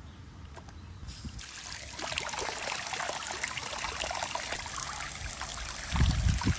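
Tap water running over wild mushrooms being rinsed, the flow starting about a second and a half in and splashing steadily. A low thump near the end.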